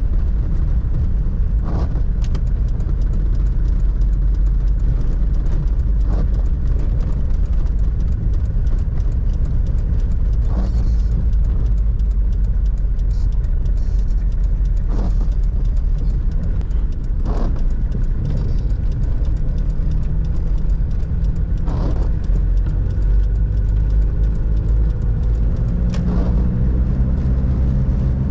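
In-cabin sound of a 1997 Toyota Hilux pickup on the move: a steady low rumble from its 3.0-litre four-cylinder diesel and the road, with brief sweeping sounds every few seconds. Near the end the engine pitch rises as the truck accelerates.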